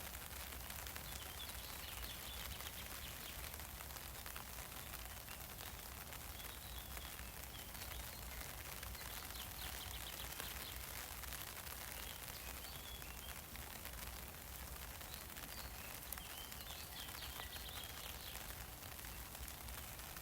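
Rain falling on an umbrella: a steady hiss dotted with small drop ticks. Birds chirp over it in short bursts every few seconds.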